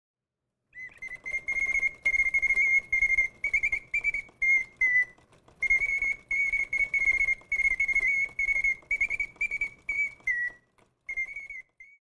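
Swiss singing-bird automaton whistling a warbling birdsong of chirps and trills around one high pitch, with a faint mechanical noise beneath. It starts about a second in, breaks off briefly twice, and stops just before the end.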